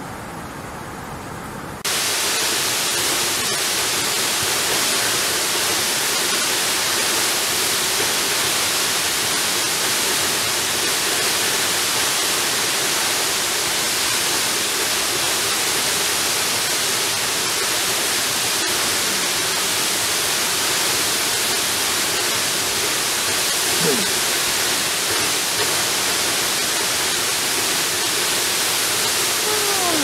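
Steady, even rush of a tall waterfall's falling water; the sound steps up abruptly to full loudness about two seconds in, from a quieter rush of water before it.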